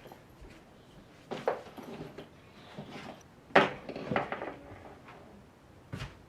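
Household objects being handled and set down: a handful of separate knocks and clatters, the loudest about three and a half seconds in.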